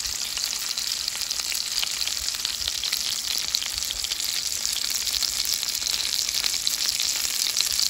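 Chicken thighs frying in oil in a skillet: a steady sizzle with many fine crackles and pops.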